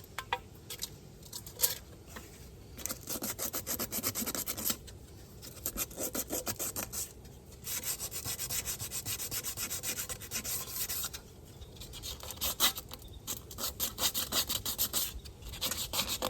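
120-grit sandpaper rubbed by hand over a painted wheel rim, in spells of quick back-and-forth strokes with short pauses between them, scuffing off peeling paint and clear coat.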